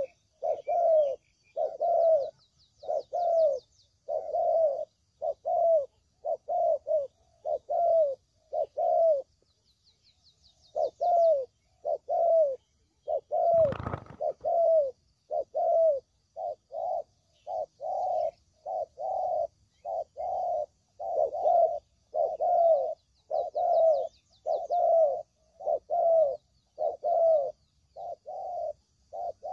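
Spotted dove (tekukur) cooing over and over in runs of short notes, each falling at the end, about two a second, with a pause of about a second near the ten-second mark. A brief burst of noise cuts across the calls about fourteen seconds in, and faint high chirping trills of small birds run underneath.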